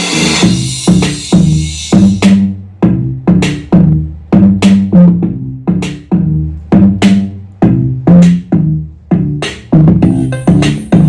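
Electronic music with punchy drum-machine kicks and heavy bass, played loud at maximum volume through a boAt Stone Spinx Pro Bluetooth speaker. A bright, cymbal-like wash of noise fades over the first two seconds.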